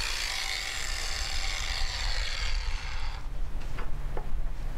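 Stick welding arc on a 6010 rod crackling and hissing, breaking off about two and a half seconds in. A low hum and a few light clicks follow.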